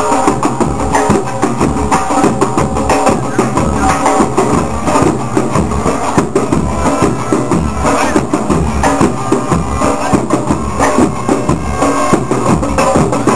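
Protest street band drumming a driving rhythm: a steady, loud bass-drum beat under snare and block-like percussion, with pitched sounds layered over the drums.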